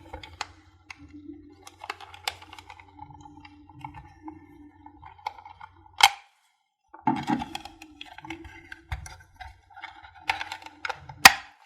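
Plastic end caps of a 10 W LED tube-style bulb being prised off by hand: scattered light clicks and scraping of plastic, with two sharp cracks as the caps snap free, about six seconds in and near the end.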